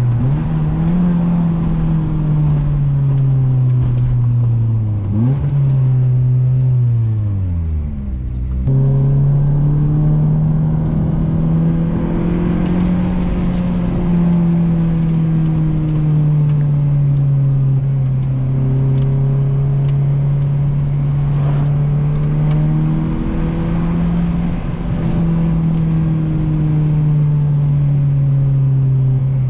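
Honda H-series four-cylinder engine running under load as the car is driven, its revs rising and falling repeatedly. About eight seconds in, the revs sink away and then jump straight back up.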